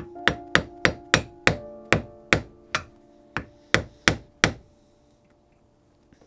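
Hammer blows on a steel punch driving the old handle out of an axe head: about a dozen sharp strikes, roughly three a second, stopping about four and a half seconds in.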